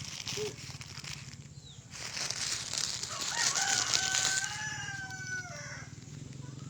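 A rooster crowing once: one long call, held steady for about two seconds and dropping in pitch at the end. A rushing noise runs under the first part of the crow.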